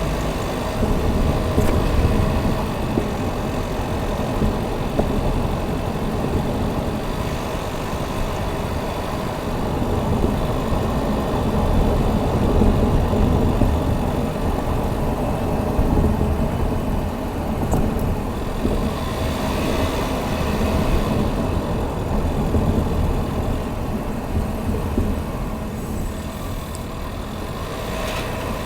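A 2019 Chevrolet Equinox running, with a steady low rumble and a faint steady whine over it, recorded for the odd noises the vehicle makes.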